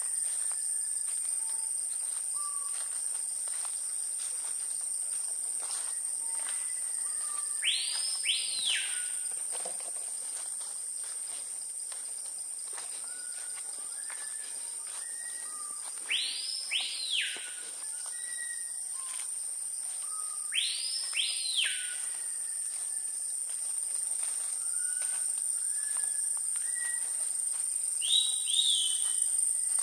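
Tropical forest ambience: a steady high-pitched insect drone, with a bird giving four loud paired whistles that sweep up and drop sharply, several seconds apart, and softer short whistles in between.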